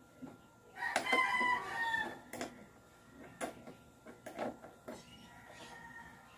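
A rooster crowing once, starting about a second in: a single call a little over a second long that falls slightly at the end. Scattered sharp clicks and knocks run through it.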